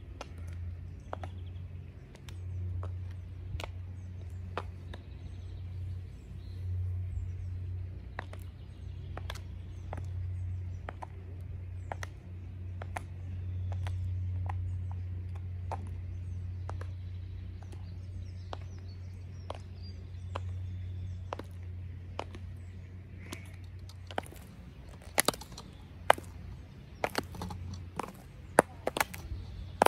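Stiletto high heels with metal heel tips clicking on stone paving slabs at a steady walking pace. The clicks grow much louder near the end.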